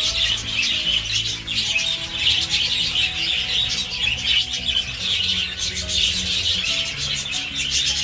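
Budgerigars chattering, a dense, continuous twittering and chirping from the flock, with background music of sustained low notes playing under it.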